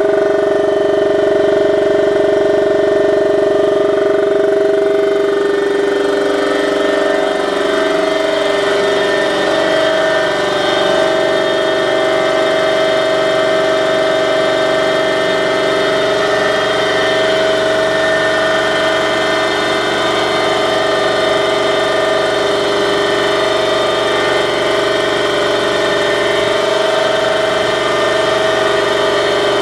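Daikin 4C75EB compressor running steadily with a loud droning whine; about seven seconds in, a deeper low hum joins it.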